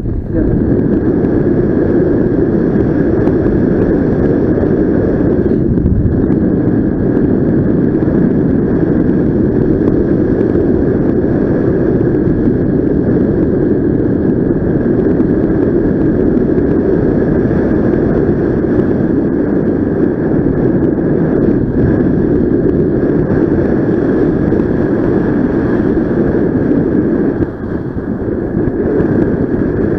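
Steady wind noise from the airflow of a paraglider in flight rushing over the camera's microphone. A thin steady whine sits above it, and the noise eases briefly a few seconds before the end.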